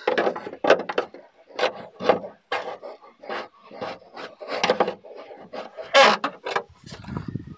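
Dent being pushed out from behind a Ford Mondeo Mk3 boot lid with the end of a hammer: repeated short scraping and creaking strokes of the tool against the sheet-metal panel, about two a second. This is paintless dent repair, working the metal from the inside.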